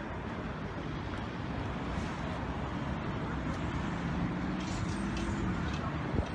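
Road traffic: a steady rumble of passing vehicles, with an engine hum coming in about halfway through and growing louder toward the end.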